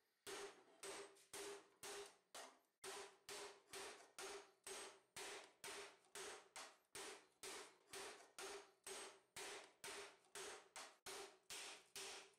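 A hammer striking a 1.5 mm mild-steel gauntlet plate over a steel stake while the plate is forged into shape. The blows come in a steady rhythm of about two a second, and each is followed by a short metallic ring.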